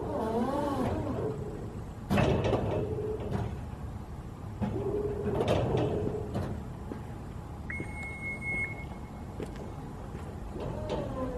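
Genie GS-4069DC electric scissor lift lowering its platform, with a wavering squeal at the start, several sharp knocks, and a brief high beep about eight seconds in.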